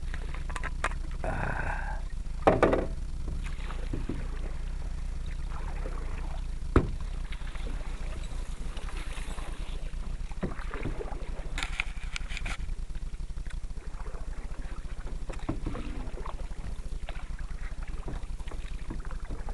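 Canoe being paddled: irregular paddle strokes, splashes and drips of water, with one sharp knock about seven seconds in, over a steady low rumble.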